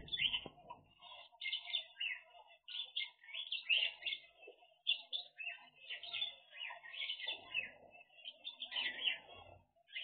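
Small aviary finches chirping and calling, many short overlapping calls that keep up all the while.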